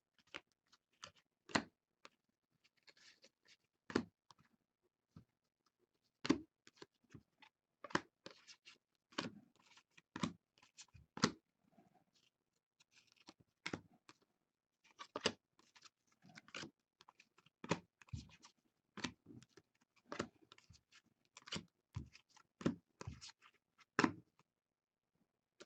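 Trading cards being sorted by hand: faint, irregular clicks and soft slaps of card edges and faces against one another, with light rustling in between.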